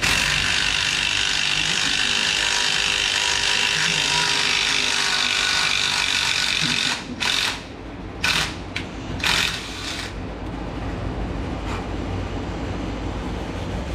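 Milling machine drilling a hole in a metal adapter plate: a steady whine of the spindle and bit cutting for about seven seconds. Then several short hissing sprays, and the machine running more quietly.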